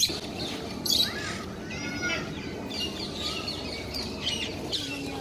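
Birds chirping and calling repeatedly in short high notes, with a louder, fuller call about two seconds in, over steady background noise.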